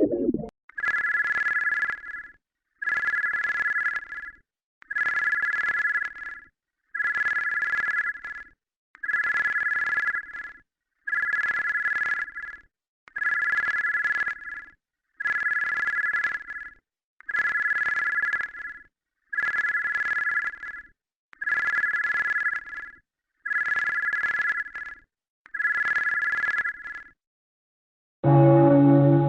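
Electronic alert tone of a mock emergency alert, sounding thirteen times at an even pace of about one ring every two seconds, each ring lasting about a second and a half. After a brief silence, a lower, sustained bell-like chord begins just before the end.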